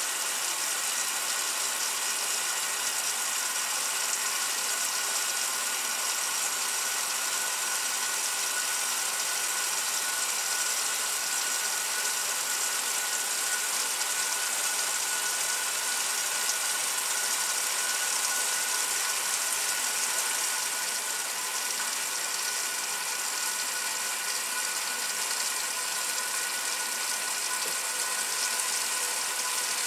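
1968 Kenmore top-loading washer agitating a load: the steady hum of its motor and transmission under the slosh of water and clothes in the tub.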